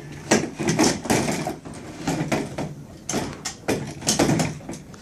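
Irregular hollow plastic knocks and clatters of a toddler's ride-on roller-coaster car being pushed and set onto its plastic track.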